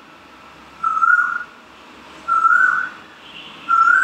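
Coblator controller's activation tone: an electronic beep at one steady high pitch with a slight upward bend, sounding three times for about half a second each, roughly a second and a half apart, as the wand is switched on and off in coagulation mode.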